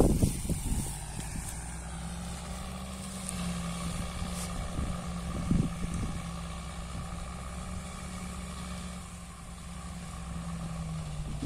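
Tractor engine running steadily under load, pulling a sugarcane-trash mulcher that shreds the leaf litter. There are a few brief low thumps near the start and about halfway through.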